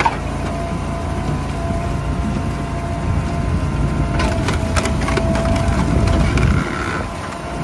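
Wood-processing machine running steadily with a low drone and a faint steady whine, with a few sharp cracks of splitting wood about four to five seconds in.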